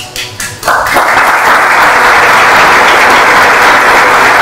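Audience applause: a few scattered claps at first, then about a second in the whole crowd joins in and the clapping holds steady and loud.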